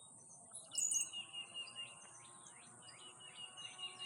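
Birds chirping: a rapid, evenly repeated high note runs alongside a series of quick downward-slurred chirps, with a brief louder high chirp about a second in and a steady high hiss behind them.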